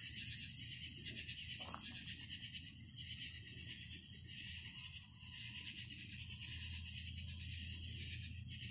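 Night insects, likely crickets or katydids, trilling steadily in a high, rapidly pulsing chorus, with a low steady hum underneath and a brief hiss in the first two seconds.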